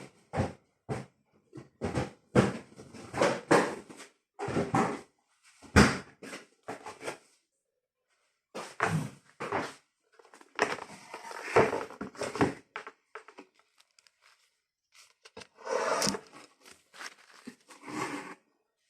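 Kitchen handling sounds: irregular knocks and clatter of containers, with stretches of rustling from food wrapping being handled.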